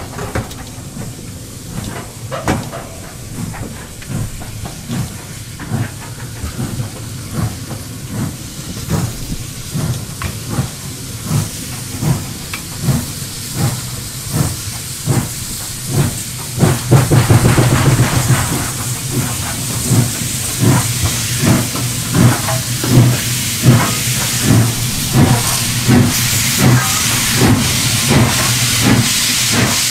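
SY-class steam locomotive working a heavy coal train, its exhaust beating in an even rhythm of about one chuff a second that quickens a little. From about 17 seconds in the beats get louder and a strong steam hiss joins them.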